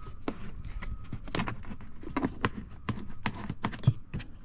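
Rubber seal being pressed back into place by hand over plastic car interior trim: a run of irregular taps and clicks, the sharpest near the end.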